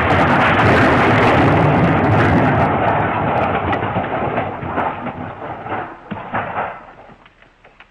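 A loud crashing, rumbling smash sound effect that dies away over several seconds, with scattered crackles of falling debris in its tail, fading to almost nothing near the end.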